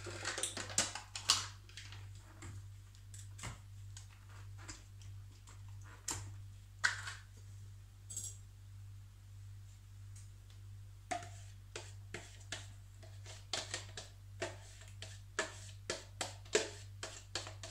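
Yogurt being emptied from a plastic tub into a glass bowl, with plastic and glass clicking and knocking as it is scraped out. The clicks come thick at first, thin out in the middle and come again quickly in the last few seconds, over a steady low hum.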